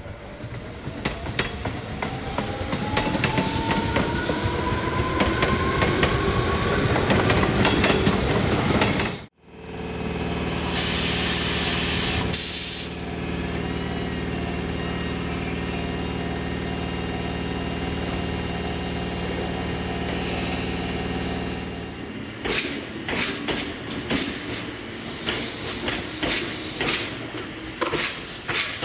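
Electric train pulling away, its motor whine rising steadily in pitch over clicks of wheels crossing rail joints. Then a standing electric train's steady hum from its onboard equipment, with a short hiss of air, before irregular clacking of wheels over joints and points as it moves.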